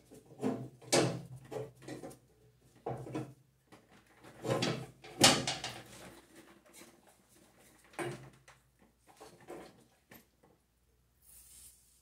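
Scattered clanks and rattles of steel parts (the deck brake arm, its spring and bushing) being forced into place by hand on a John Deere 42-inch mower deck, the loudest clank about five seconds in. Near the end comes a short hiss of aerosol lubricant spray.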